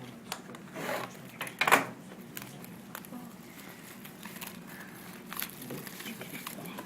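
Plastic wrapping crinkling and tearing as a sealed trading card box is opened, in irregular crackles with the loudest rip a little under two seconds in.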